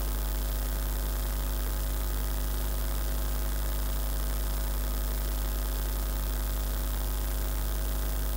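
Steady, low electrical mains hum with a row of evenly spaced overtones above it, the kind of hum a sound system or recording line picks up.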